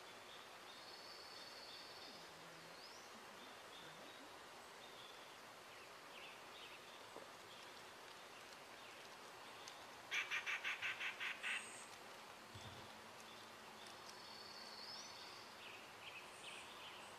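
Quiet outdoor background with small birds calling: thin high notes, two of them a held note ending in a quick upward sweep. About ten seconds in comes the loudest sound, a rapid run of about nine sharp, evenly spaced notes over about a second and a half.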